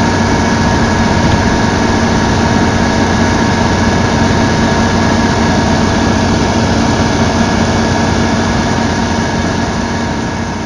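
Kubota rice combine harvester's engine running steadily, with a constant mechanical whine over it, fading toward the end.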